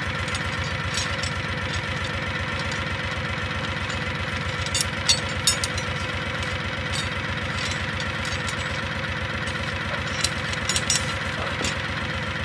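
An engine idling steadily with an even, fast low pulse, with a few short metallic clinks about five seconds in and again near the end.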